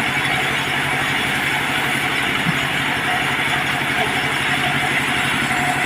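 Diesel engine of a mobile sawmill running steadily at idle, with a fast, even low pulsing.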